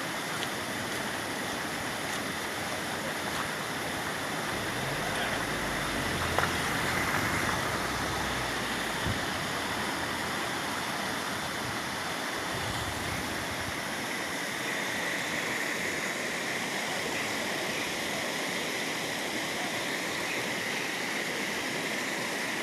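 Steady rushing of flowing water from a stream. There is a brief low rumble in the middle, with a single knock about six seconds in.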